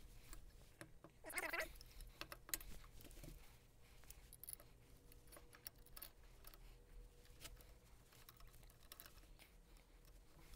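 Faint clicks and taps of small metal parts being handled as brass brake cylinders and pins are fitted to powder-coated steel rudder pedals, with one brief louder scrape about a second and a half in.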